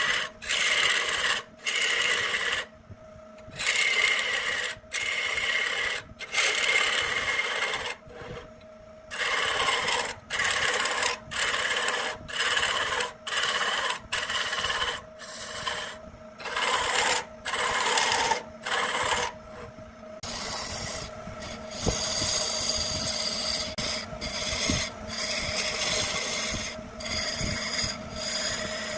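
Turning gouge cutting a spinning wooden spindle on a lathe: a run of rasping cuts, roughly one a second with brief gaps between, running more continuously near the end, over the lathe's steady whine.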